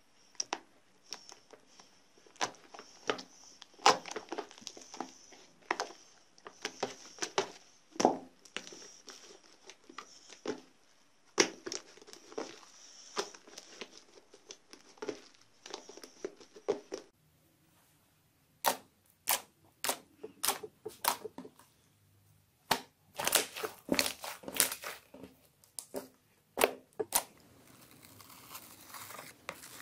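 Hands squeezing and kneading soft slime, making irregular sharp wet pops and sticky clicks as the fingers press in and pull free.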